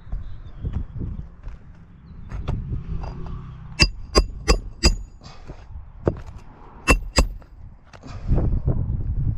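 Sharp metal-on-metal strikes with a short ring: four in quick succession, then two more a couple of seconds later. Between them are low knocks and rustling from shingles being handled on the roof.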